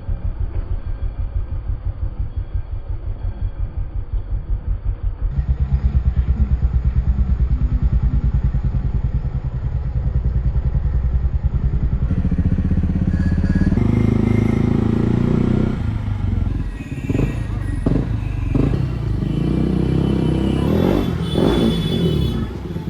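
KTM RC 200's single-cylinder engine running through an aftermarket exhaust with a fast, even pulsing beat, growing louder about five seconds in. From about fourteen seconds it turns noisier and mixes with several sharp knocks and clatter.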